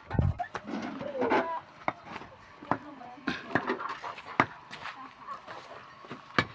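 Sharp, irregular knocks of hand tools striking stone, as rocks are broken up for concrete gravel, with voices talking in the background.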